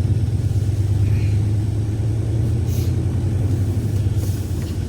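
Steady low rumble of a car on the move, heard from inside the cabin, with two brief hisses about three and four seconds in.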